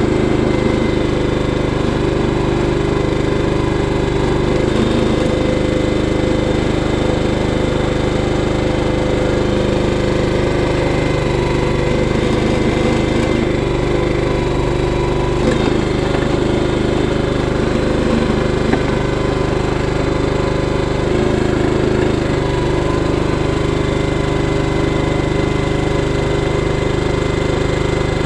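Small engine running steadily at a constant speed, with an uneven rattle over it.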